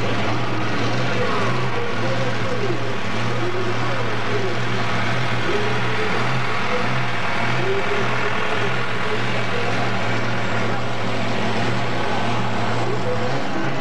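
Mini pulling tractor's engine idling steadily at the start of a tractor pull, with voices over it.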